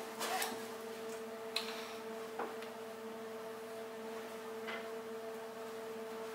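Faint handling noises from a backpack: a few light rustles and small clicks, spaced a second or so apart, over a steady hum.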